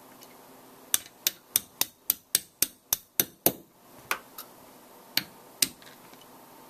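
Small hammer tapping a pin punch to drive the hammer pin out of an AR-15 lower receiver. About a second in come ten sharp taps in quick succession, roughly four a second, followed by a few more spaced-out taps.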